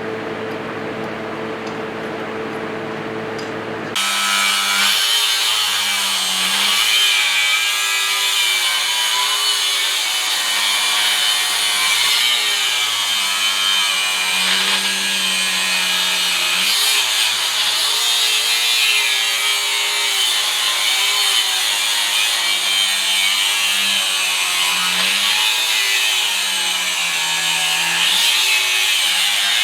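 Angle grinder with a cutoff wheel cutting steel plate. It comes in suddenly about four seconds in, after a steady hum, and goes on as a loud continuous grind, the motor's pitch wavering as the wheel bites.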